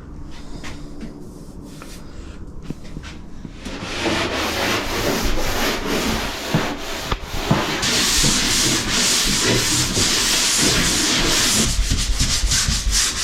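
Rough, steady scrubbing against a plywood wall surface, starting loudly about four seconds in after a few light taps.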